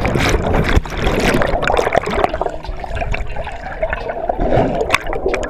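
Water gurgling and sloshing around a camera held underwater, muffled and bubbly, with many small sharp splashes and clicks.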